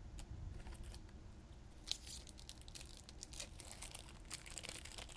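Faint crinkling and scattered light clicks of trading cards and a foil booster pack wrapper being handled, with one sharper click about two seconds in.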